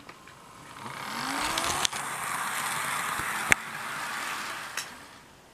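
Athearn Blue Box F7 HO-scale model locomotive running along sectional track, running really nice: an even whirring of motor and wheels that swells over about a second, holds, then fades away near the end. A few sharp clicks stand out, the loudest about three and a half seconds in.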